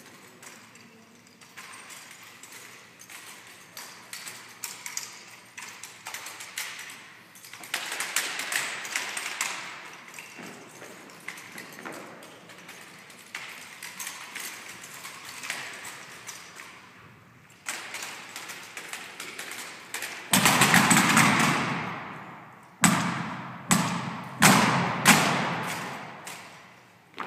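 Drill team rifle routine: a long run of sharp clicks and slaps of hands on drill rifles. About twenty seconds in comes a loud burst of noise lasting about two seconds, followed by four or five loud thumps that echo in a large hall.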